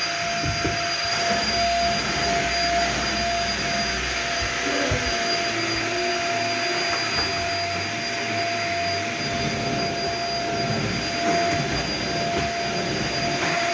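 Vacuum cleaner running steadily: an even rushing noise with a constant motor whine.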